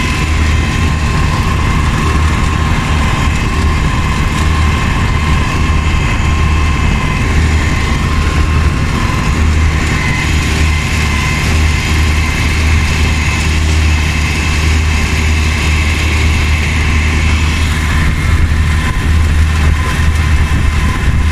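A 22 hp Predator V-twin engine driving a Mud-Skipper surface-drive mud motor, running steadily under way. It holds a low, even engine note with a steady high whine above it.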